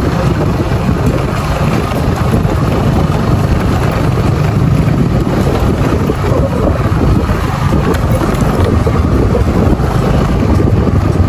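Honda Dio scooter riding along a dirt road, its small engine running under a steady, loud rumble of wind buffeting the microphone.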